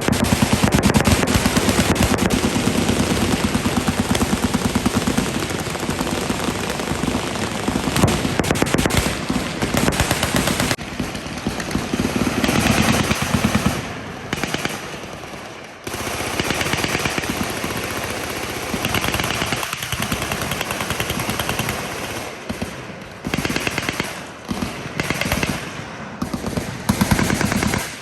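Machine guns firing in rapid, overlapping bursts, nearly without pause. Brief lulls come about halfway through, and the firing turns into shorter, separate bursts near the end.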